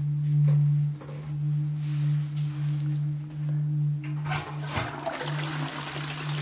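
A low steady hum, then about four seconds in a toilet flushes from its tank push-button, water rushing into the bowl.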